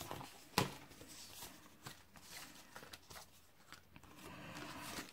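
Paper and crafting supplies being handled on a work table: a sharp knock about half a second in, small clicks, then soft rustling of paper sheets that gets louder near the end.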